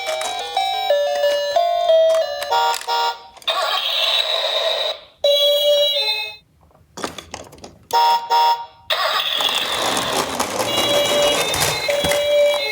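A short electronic tune, then a high, thin electronic ambulance siren in stretches over the noisy rattle of die-cast minicars rolling down a slope. There is a brief silence with a few clicks about halfway.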